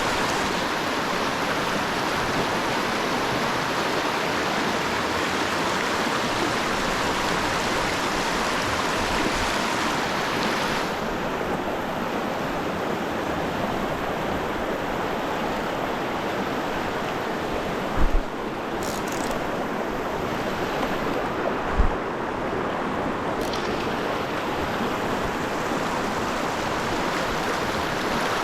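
Steady rushing of stream water, with two brief low thumps about four seconds apart in the second half.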